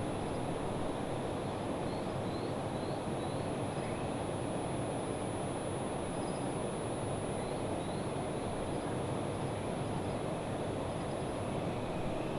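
Steady low outdoor rumble, with a faint steady high whine and two short runs of faint high chirps, a few seconds apart.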